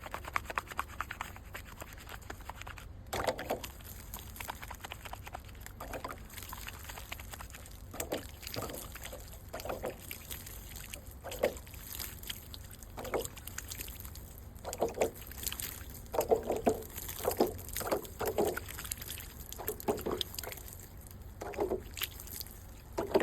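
Water sloshing and trickling in short, irregular splashes, with scattered light knocks and clicks, busier in the second half.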